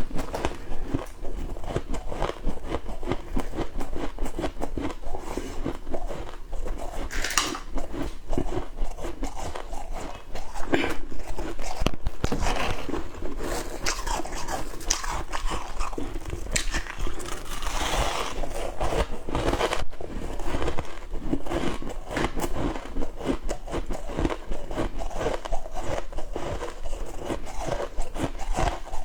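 Close-miked biting and chewing of flaky freezer frost: a dense, continuous crunching and crackling, with a few louder crunches along the way.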